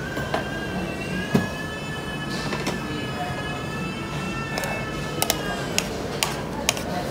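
A metal ladle clinking several times against a plastic plate and a steel steamboat pot, mostly in the second half, over a steady low hum. A long held musical note sounds in the background for the first five seconds or so.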